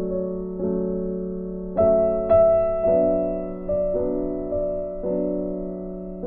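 Background piano music: slow, gentle notes and chords, each struck and left to fade before the next.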